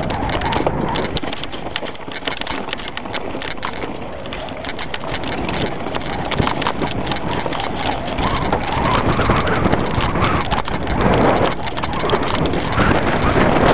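Mountain bike descending a rough, rocky trail: tyres crunching over stones and gravel, with rapid rattling and knocks from the bike, and wind buffeting the microphone.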